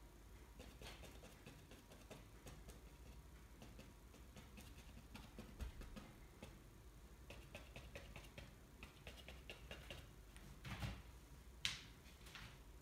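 Faint, irregular light taps of a paintbrush dabbing paint onto canvas, with a sharper click near the end.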